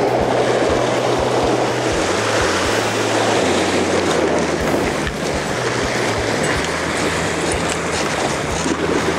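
Sea surf washing and breaking against a rocky shoreline, a steady rushing of water.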